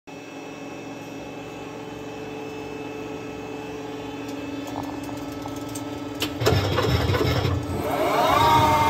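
CNC lathe running with a steady machine hum. About six seconds in a louder, rougher noise starts, and near the end a whine rises in pitch and then holds, like the spindle speeding up.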